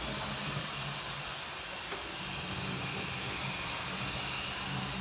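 Two Bachmann 4-4-0 model steam locomotives running on track: their motors and gears give a steady low hum with a hiss over it.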